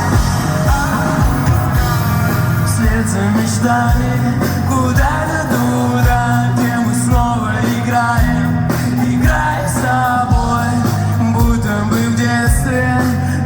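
A rock band playing live, with a sung vocal line over a steady kick-drum beat, bass and cymbals.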